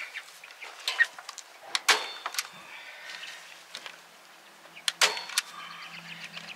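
Hand staple gun firing staples through a tarp into a wooden frame: four sharp snaps, two in the first two seconds and two close together about five seconds in.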